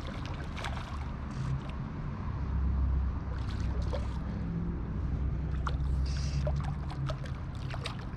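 Running river water with a steady low rumble that swells in the middle, and scattered small clicks and splashes over it.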